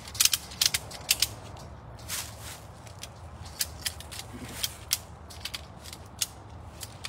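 Irregular sharp clicks and clacks, a quick cluster in the first second and a half, then scattered single clicks, over a steady low hum.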